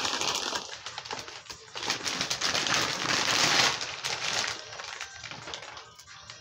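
Doritos chip bag crinkling and crackling as it is pulled open and handled, dying down after about four and a half seconds.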